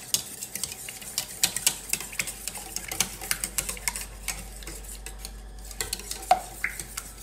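Wire whisk beating eggs and milk in a stainless steel bowl: rapid, irregular clicks of the wires striking the metal sides.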